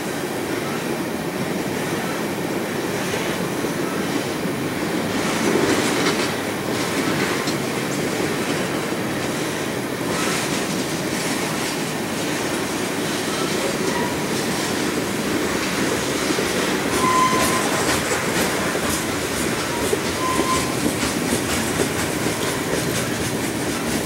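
Freight train of tank cars rolling past at steady speed: a continuous rumble of steel wheels on rail, with rhythmic clicking over rail joints from about halfway through. A few brief wheel squeals sound in the second half.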